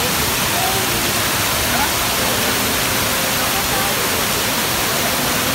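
Steady rush of water spilling over the edges of a stepped stone water wall. Faint voices of people chatter in the background.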